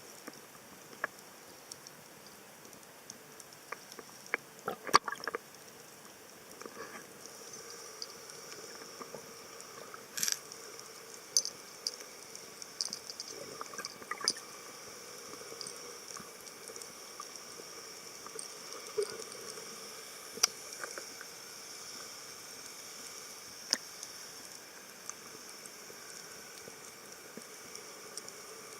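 Water sounds: a steady faint wash with scattered sharp clicks, pops and drips, a few louder pops standing out.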